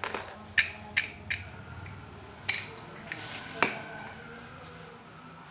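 A round steel padlock and its keys handled, clinking and clicking about six times. The loudest clink comes a little past halfway, as the lock is set down on a stone counter.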